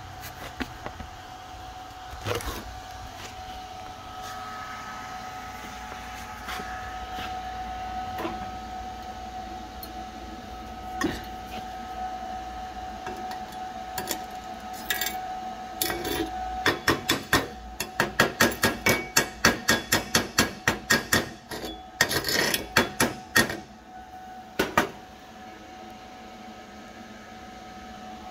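Hammer striking welded steel plate: a fast, even run of sharp metal knocks, about four a second, starting past the middle, then a denser flurry and a last knock. A steady faint hum runs underneath.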